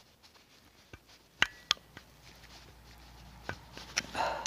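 Knife blade cutting and scraping in the grooves between the copper segments of a brushed DC motor's commutator, clearing out the slots. A few sharp metallic clicks, two with a brief ring, then a short scrape near the end.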